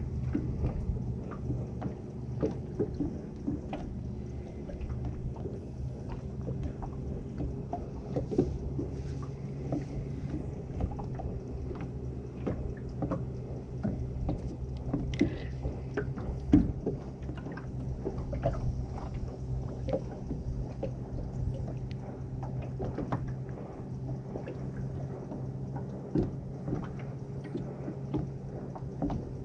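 A small motor hums steadily aboard a small fishing boat, with scattered short knocks and clicks of gear and water against the hull.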